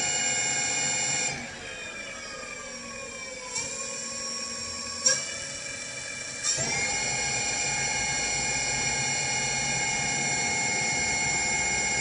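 Electric bike hub motor whining at speed in its fourth speed setting of a modified controller. A bit over a second in the drive drops off and the whine fades and slides down in pitch, with a few short clicks, then about six and a half seconds in power comes back and the whine climbs to a steady high pitch again.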